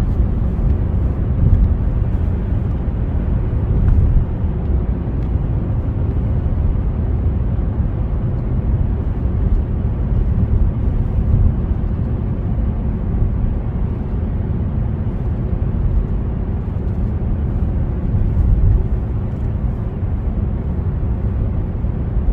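Steady road noise and engine rumble of a car driving at highway speed, heard from inside the cabin.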